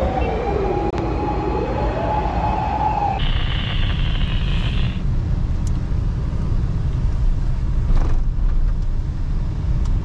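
Emergency vehicle's wailing siren sweeping up and down in pitch, which cuts off about three seconds in. It is followed by the steady low rumble of a car driving slowly.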